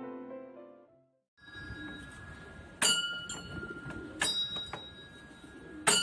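Bell on a large hand-turned prayer wheel struck once per revolution: three clear dings about a second and a half apart, each ringing on. Piano music fades out in the first second.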